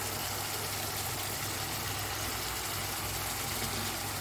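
Fish curry sauce sizzling and simmering in a pan on the stove, a steady even hiss over a constant low hum.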